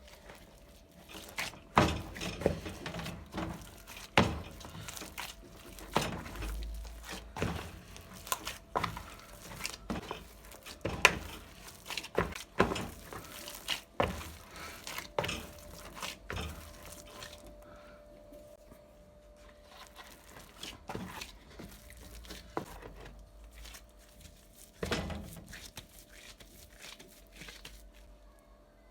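Food preparation on a kitchen work surface: irregular knocks, taps and thuds of hands and utensils, dense at first and sparser after about seventeen seconds, over a faint steady hum.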